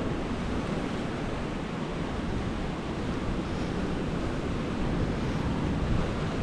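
Ocean surf, a steady rush of rough waves washing onto a rocky coral shore, with wind buffeting the microphone.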